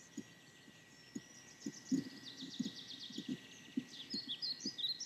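Small birds chirping and trilling: a fast run of repeated high notes from about a second in, then scattered chirps near the end. Soft, short low ticks come at irregular intervals underneath.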